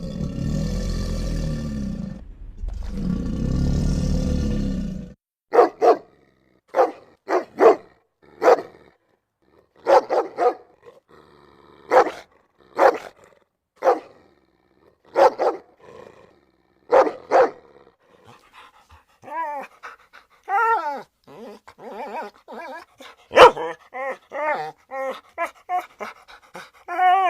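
Two long, rough roars, then a dog barking in single and double barks about once a second. Later these give way to quicker, higher yips and whines that bend up and down in pitch.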